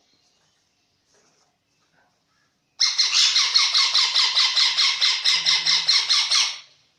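Baby sun conure chick begging: a fast, even run of loud, grating squawks, about six a second, starting about three seconds in and lasting nearly four seconds. This is the food-begging call of a hand-fed parrot chick.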